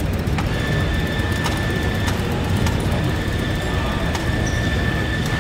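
Steady exhibition-hall background noise: a low rumble, with a thin high tone coming in about half a second in and a few faint scattered clicks.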